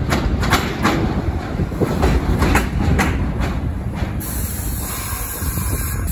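New York City subway train pulling into an elevated station, its wheels clacking sharply over rail joints over a steady rumble. About four seconds in a steady high hiss of air starts as the train brakes to a stop.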